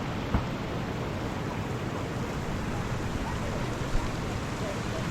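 Running water of a spring stream: a steady rushing, with two brief sharp knocks, one near the start and one about four seconds in.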